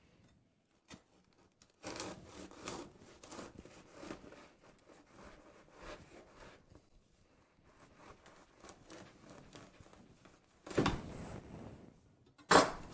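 Wüsthof serrated bread knife sawing back and forth through the crisp crust and crumb of a sourdough loaf, a run of scratchy, crackling strokes. Two louder thumps follow near the end.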